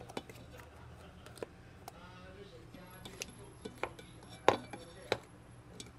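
Scattered sharp clicks and knocks of a plastic spice shaker and a stainless steel bowl being handled during seasoning, about half a dozen in all, the loudest about four and a half seconds in.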